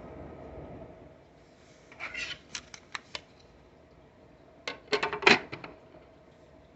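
Two short runs of sharp clicks and taps, like small hard objects being handled, over a faint steady hum; the second run, near the end, is the louder.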